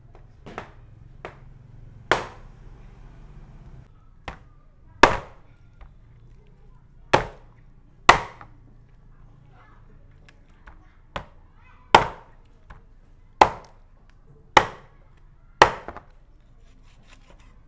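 A knife chopping hard in the kitchen: about eight heavy blows at uneven intervals, each ringing briefly, with several lighter taps between them.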